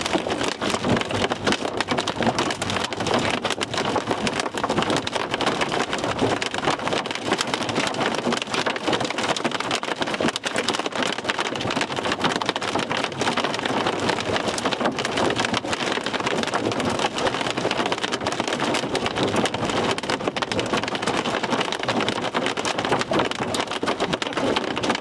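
Hailstones hitting a moving vehicle's roof and windshield, a dense, continuous clatter of many small impacts, heard from inside the cab.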